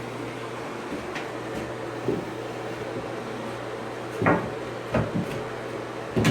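A few short knocks, like a cupboard or drawer being handled, over a steady low hum. The loudest knock comes about four seconds in, and a quick pair follows about a second later.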